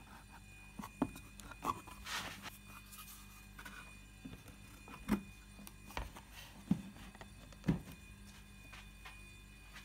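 A wooden lens board carrying a large Carl Zeiss Jena Tessar lens being handled on a wooden workbench and against the camera front. The result is a series of scattered light knocks and handling noises, about seven in all.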